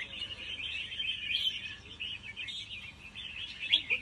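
Cage birds chirping and twittering without a break, many short calls overlapping.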